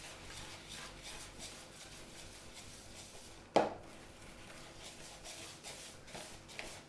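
Kitchen utensils being handled against a mixing bowl and worktop: faint, irregular scraping and tapping, with one sharp knock about halfway through.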